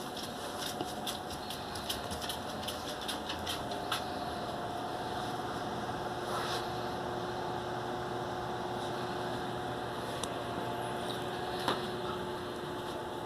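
A steady mechanical hum with a faint held tone, as from a fan or small motor running, with a few light clicks and ticks in the first few seconds.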